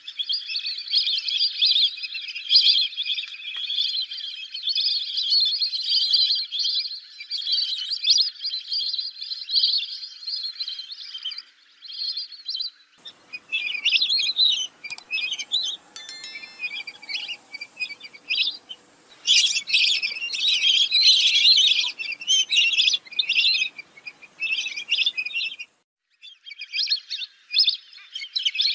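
Lesser whistling ducks calling with high, shrill whistles repeated rapidly, many overlapping at first, then coming in short bursts with brief pauses.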